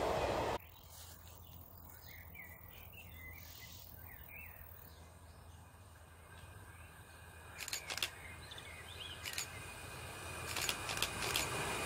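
A train's running noise cuts off abruptly just after the start, leaving quiet rural ambience with birds chirping and a few sharp clicks. Near the end the rumble of an approaching passenger train rises.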